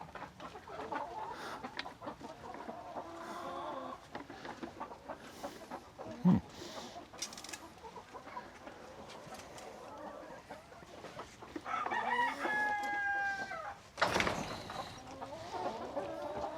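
Hens clucking, with a rooster crowing once about twelve seconds in. A sharp thump about six seconds in is the loudest sound, and there is a short rustle a couple of seconds from the end.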